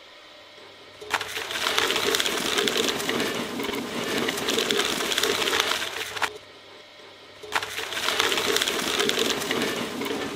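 Dual-shaft shredder's cutter discs chewing through a stack of paint swatch cards: dense crackling and tearing of card stock. It comes in two stretches, about five seconds and then about three seconds, with a short lull between them, over a steady low motor hum.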